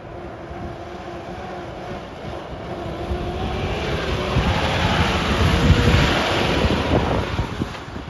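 Mahindra Roxor turbo-diesel off-roader driving past, engine running with tyres on a dirt track; it grows louder to a peak about six seconds in as it passes close, then starts to fade as it pulls away.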